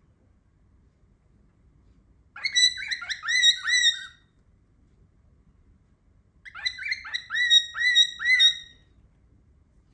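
Cockatiel calling in two bouts of quick, repeated chirping notes, each bout lasting about two seconds: the first a couple of seconds in, the second past the middle.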